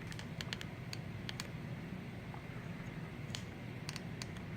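Light, scattered clicks of small metal padlock parts being handled: a quick cluster in the first second and a half and a few more near the end, over a steady low hum.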